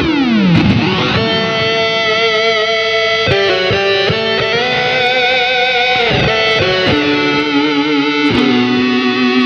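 Electric guitar played through an EarthQuaker Devices Data Corrupter PLL synth pedal, square-wave fuzz and master oscillator up, with reverb and delay adding a tail. The notes sound thick and synth-like. The pitch glides down at the start, then settles into held notes that change a few times and waver slightly.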